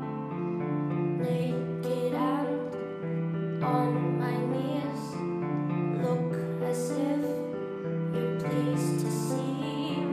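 Slow, soft music built on sustained keyboard chords, with long notes held and changing every second or two.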